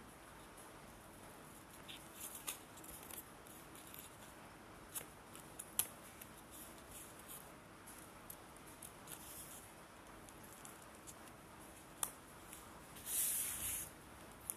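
Small hand scissors snipping through folded craft paper in scattered, irregular snips. Near the end comes a louder rustle as the cut paper is handled.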